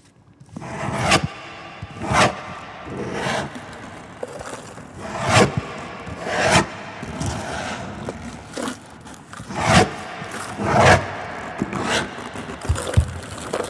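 Repeated scraping strokes, a rasping scrape about every one to two seconds, unevenly spaced and varying in strength, with a quieter rub between them.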